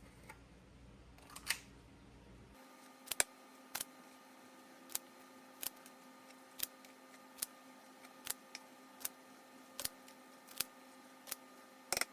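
Short sharp clicks of a kitchen utensil, about one every three-quarters of a second, as garlic paste is scooped into small portions for freezing.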